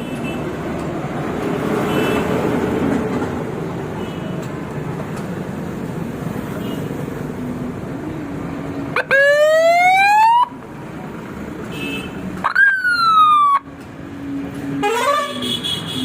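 Electronic police-siren unit fitted to a Hero Honda Splendor motorcycle, sounding three times: a rising wail lasting about a second and a half, about nine seconds in; a quick rise-and-fall about three seconds later; and a short warbling chirp near the end. The motorcycle's engine runs steadily underneath.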